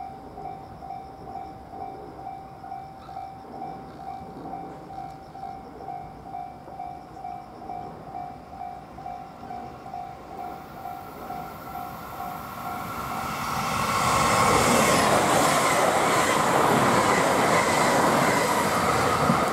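Super Hakuto HOT7000-series diesel limited-express train approaching and passing close at speed: its rumble swells from about twelve seconds in and is loudest near the end. Under it, a single ding repeats about twice a second throughout.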